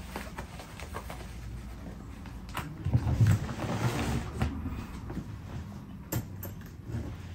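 A large hard-shell suitcase is shut and handled: a dull thump about three seconds in as the shell closes, with rustling and a few sharp clicks around it.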